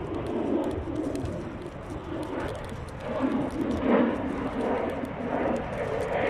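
A bird cooing in repeated low calls over the rattling and small knocks of an electric scooter riding along.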